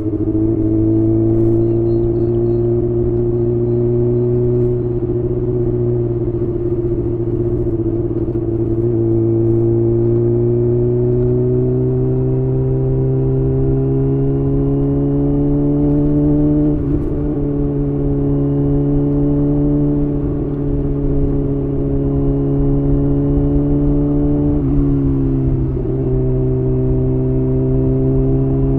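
Exhaust note of a 2023 Kawasaki Ninja ZX-6R's inline-four engine through a Leo Vince exhaust while riding. The engine's pitch climbs slowly, then drops back twice, a little past halfway and near the end, as the bike shifts up a gear.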